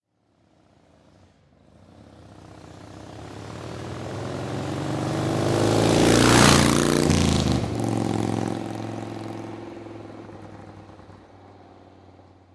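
A motorcycle driving past: its engine grows steadily louder for about six seconds, passes at its loudest about six and a half seconds in with a drop in pitch, then fades away.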